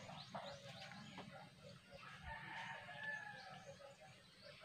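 A rooster crowing faintly, one long call about halfway through, with small birds chirping.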